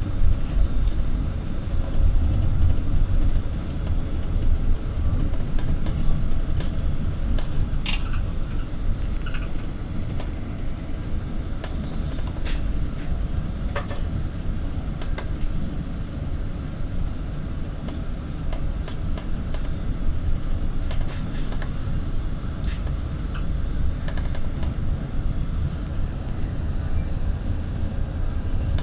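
Steady low rumble of engine and tyre noise heard from inside a moving road vehicle, with scattered light clicks and rattles.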